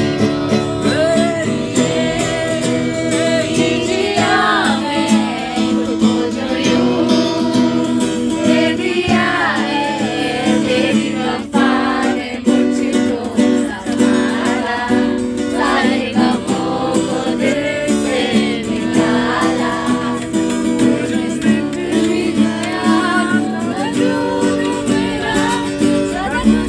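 Acoustic guitar strummed with singing over it.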